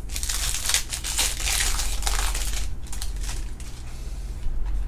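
Trading card pack wrapper crinkling and crackling as it is handled and crumpled, loudest for the first two and a half seconds or so.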